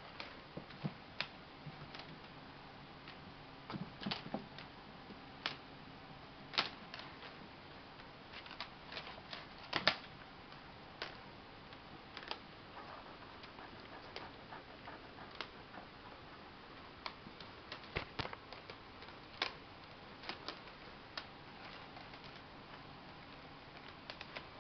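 Irregular light clicks and taps of kittens at play on a hardwood floor: paws and claws on the boards and a white plastic band knocked against the floor, over a faint steady hiss. The loudest taps come in a quick cluster about ten seconds in.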